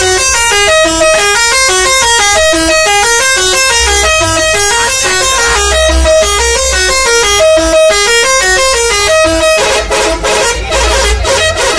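Saztro Holiday bus's telolet horn, a multi-trumpet musical bus horn, playing a quick tune of short stepped notes. About nine and a half seconds in, the tune breaks off into rapid, rougher stuttering blasts.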